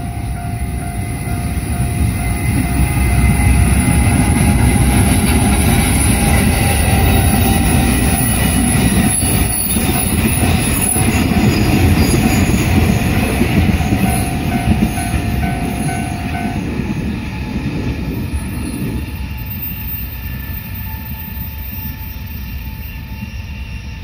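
Freight train passing: a JR Freight EF210 electric locomotive hauling container wagons, its wheels rumbling on the rails. The rumble builds over the first few seconds, stays loud while the wagons go by, and fades over the last third as the train moves away.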